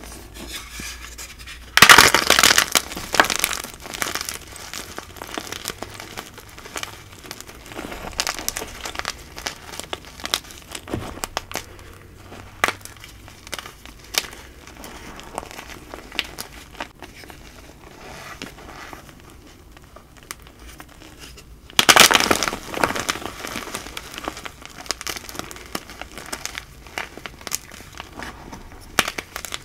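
Hands crushing and crumbling chunks of dyed cornstarch in loose powder: soft crunches and crackles throughout, with two louder bouts of crunching, about two seconds in and again about twenty-two seconds in.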